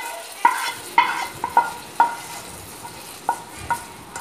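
Metal spoon stirring semiya payasam in a metal pot, knocking against the pot's side in about seven short ringing clinks, most of them in the first two seconds, over a low steady hiss.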